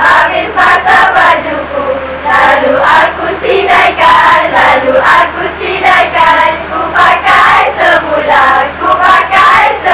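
A large group of teenage girls singing and chanting a song together, loud and rhythmic.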